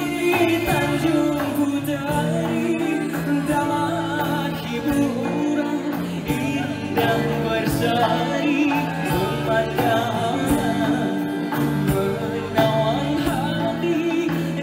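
Male vocalist singing a Malay song live with a band of drum kit, keyboards and guitar keeping a steady beat.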